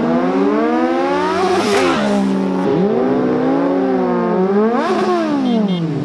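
Inline-four superbike engines revving as motorcycles ride by. The pitch climbs and drops several times, with sharp swells about two seconds and five seconds in.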